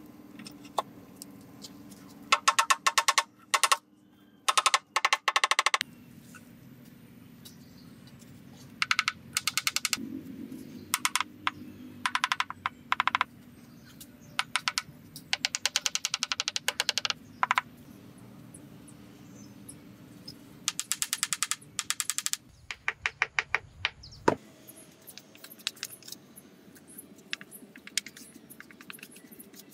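Small wooden mallet tapping miniature ceramic tiles down into wet mortar, in quick runs of light taps a second or two long with pauses between. Fainter, scattered ticks follow near the end.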